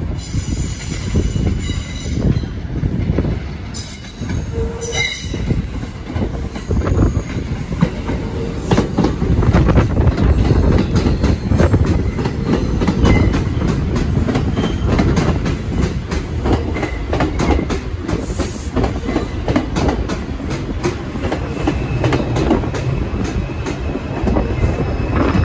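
R142 subway train rolling into the station: a low rumble with rapid clacking of the wheels over the rail joints, and brief squeals from the wheels.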